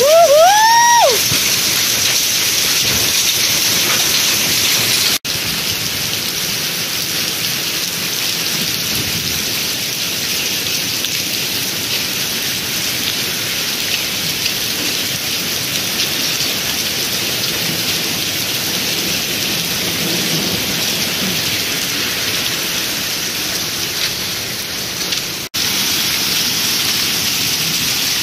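Hail and heavy rain falling steadily, a dense, even patter on the ground. A short voice call comes right at the start.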